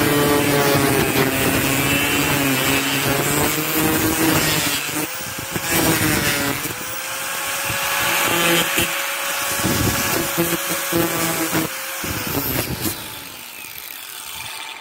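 Electric angle grinder sanding the rough edges of cured fiberglass, its motor whine dipping each time the disc bites. It winds down near the end.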